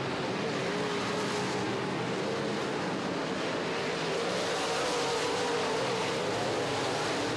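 Several dirt-track modified race cars running at racing speed around a dirt oval. Their engines blend into a steady roar whose pitch wavers up and down slightly.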